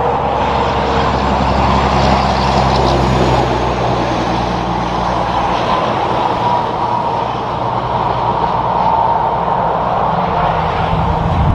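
Red Peterbilt car-carrier semi truck passing on the highway, its diesel engine running and tyres on the pavement, amid steady traffic noise from other cars and trucks.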